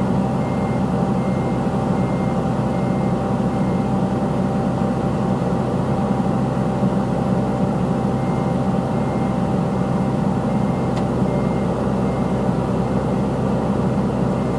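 Caterpillar 320C excavator's diesel engine running steadily at working revs. A reversing alarm beeps about twice a second over it, stopping about four seconds in and starting again around eight seconds.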